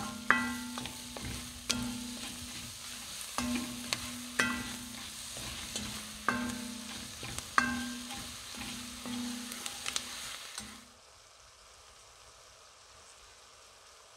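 Wooden spatula stirring and scraping sliced onions and brown sugar around an enamelled cast-iron casserole while the onions sizzle as they caramelize; the scrapes come every second or two, some of them squeaky. About eleven seconds in the stirring and sizzle cut off abruptly, leaving only a faint hiss.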